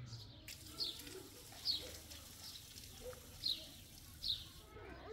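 A bird chirping: short, high, falling notes repeated about once a second.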